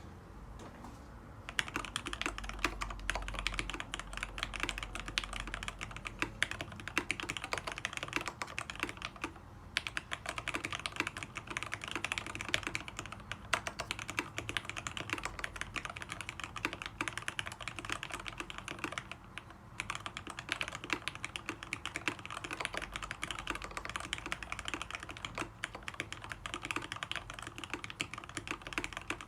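Typing on a custom mechanical keyboard with lubed Tealios linear switches under Cherry-style top housings, 55 g springs, an aluminium plate and lubed stabilizers: fast, continuous keystrokes that start about a second and a half in, with two short pauses.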